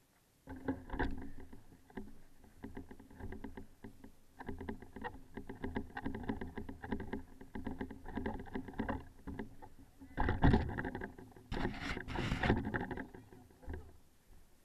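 Traxxas Stampede RC truck heard from its own onboard camera as it drives through snow: a busy run of irregular clicking and drivetrain noise, then two louder rushes of noise about ten and twelve seconds in.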